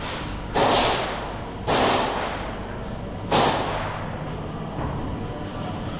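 Three sharp airsoft gunshots, spaced one to one and a half seconds apart, each ringing out briefly in a large hall.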